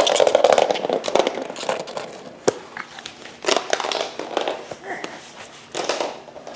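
Rustling and handling noises with scattered clicks and taps, one sharp click about two and a half seconds in.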